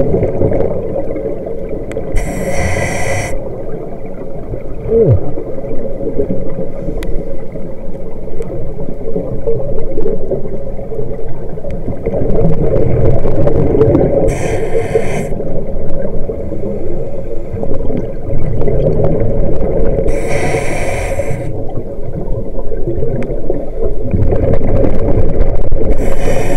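Underwater recording of scuba exhaust bubbles from a diver's regulator: four hissing bursts about a second long each, over a steady low rumble.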